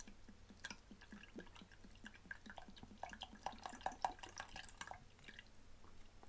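Dark soy sauce pouring from a glass bottle into a saucepan of liquid sauce ingredients: faint, irregular dripping and small splashes, coming thickest from about three to five seconds in.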